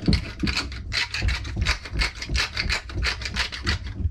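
Ginger being grated by hand: quick, even rasping strokes, about five a second, that stop near the end.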